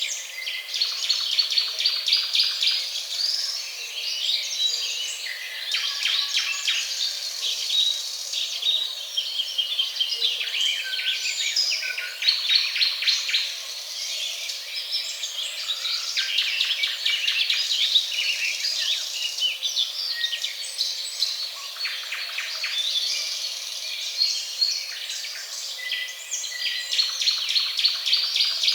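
Many birds chirping and singing at once, a dense chorus of overlapping chirps and quick trills, starting abruptly.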